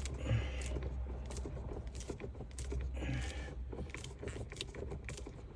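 Light clicks and rattles of plastic interior console trim being pushed and pried loose by hand.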